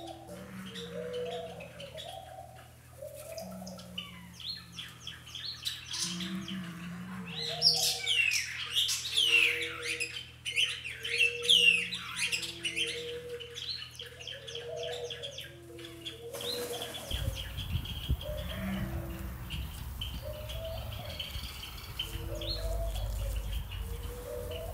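Small birds chirping and twittering in many quick high notes, thickest from about seven to twelve seconds in, over soft low notes repeating at an even pace. About seventeen seconds in, a low rumble joins.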